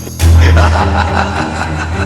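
Background music that jumps sharply louder a moment in, with a strong deep bass under sustained pitched notes.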